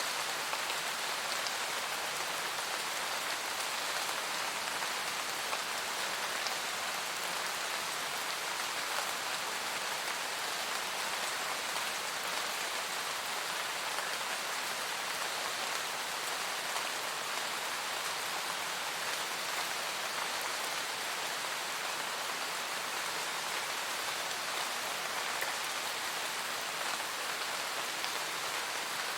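Steady rain falling in a forest, a dense, even patter of raindrops on leaves and the ground.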